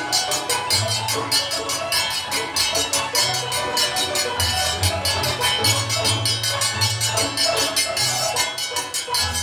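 Hand-cranked barrel organ of the Curaçaoan kaha di órgel type playing a mazurka: a steady bass line of held notes under the melody, with a quick, even percussion beat on top.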